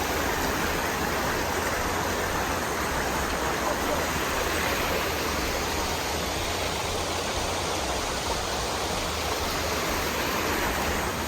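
Cummins Falls waterfall rushing, a steady, even roar of falling water.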